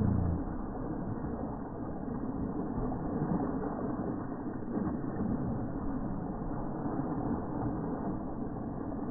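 Water splashing and rushing around a rock in a stream: a steady, unbroken rush with no pauses.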